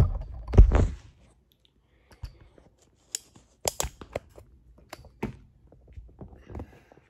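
Handling noise from a phone being fitted onto a tripod: a couple of loud thumps and rubs in the first second, then scattered light clicks and taps.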